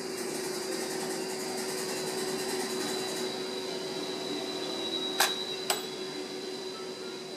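Unplugged drip tea brewer: the brewed tea trickles into the mug below until about three seconds in, over a steady hum. About five seconds in comes a ringing metallic 'dang', struck twice half a second apart with the first louder, the machine's signal that the tea has finished draining.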